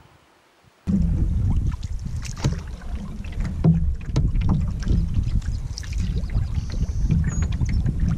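Wind buffeting the microphone aboard a canoe on open, choppy water, with small waves slapping and splashing against the hull. It starts abruptly about a second in, after a faint stretch.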